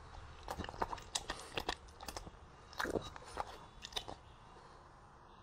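A dog chewing and crunching a piece of sweet potato, a quick run of sharp crunches that thins out after about four seconds.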